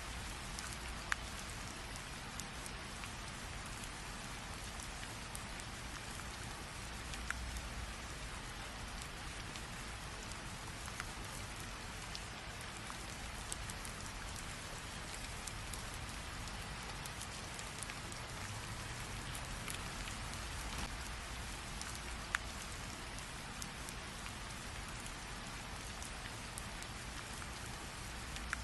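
Steady rain falling on a surface, an even hiss with scattered sharper drop ticks.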